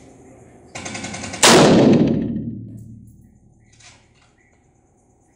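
A single gunshot from live ammunition fired inside an indoor range, a sharp crack with a long echoing decay, about a second and a half in. A short rattling buzz comes just before it.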